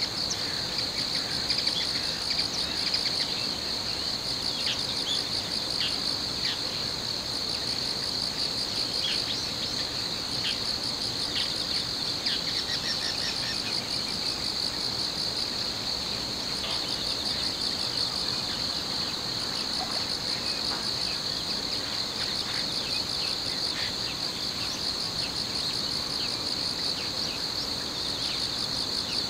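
Steady chorus of crickets and other insects chirping, with brief bird chirps scattered through it.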